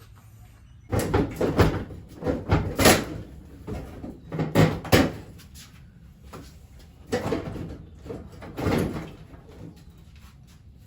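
Irregular knocks, clunks and rattles of parts being handled during work on a car's front end. They come in bunches over the first half and twice more later on.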